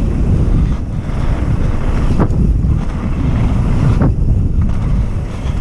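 Wind buffeting the microphone of a camera mounted on a mountain bike at speed, over the rumble of its tyres on a dirt trail, with two sharp knocks from the bike about two and four seconds in.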